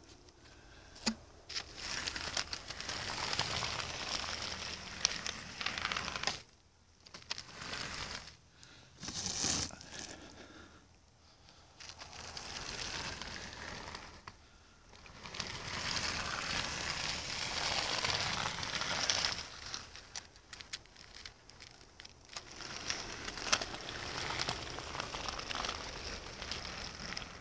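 Very cold, dry snow crunching and hissing as a hand-pushed model railroad snowplow is shoved through it along the track, coming in several stretches of a few seconds with short pauses between.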